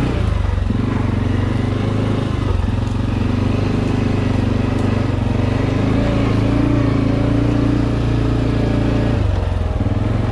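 ATV engine running steadily while riding, its engine speed dipping and picking up again a little under a second in, about two and a half seconds in, and near the end.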